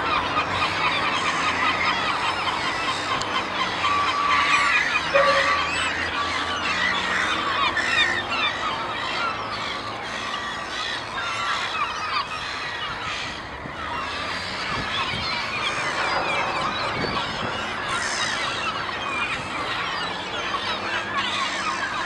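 A flock of large gulls calling all at once, a dense overlapping clamour that never breaks. At the start a Caspian gull gives its long call, head thrown back and bill wide open.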